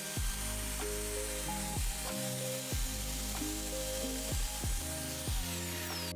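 Background music with bass notes and regular beats, over the steady hiss and high whine of a plunge router chamfering the edges of timber stair treads; the whine falls in pitch near the end.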